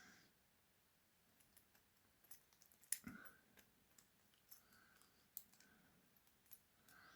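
Near silence broken by sparse faint clicks and taps of a small metal challenge lock being handled, with one sharper click about three seconds in.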